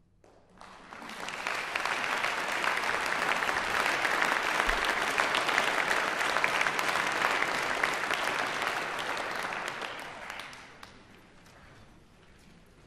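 Concert-hall audience applauding at the end of a piece: the clapping starts about half a second in, swells within a second or so, holds steady, then dies away around ten to eleven seconds in, leaving a few scattered claps.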